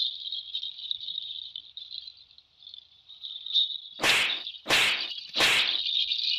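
A steady high insect trill, like crickets, with three loud, short swishing whacks in the second half, each about two-thirds of a second after the last.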